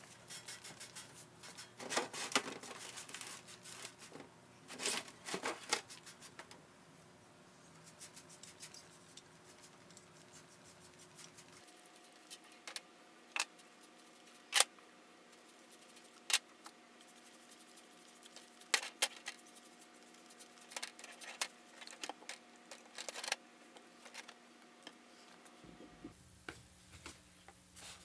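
Hand work on a tin toy typewriter's small metal parts: scattered clicks and short scrapes, with one sharp click about halfway through.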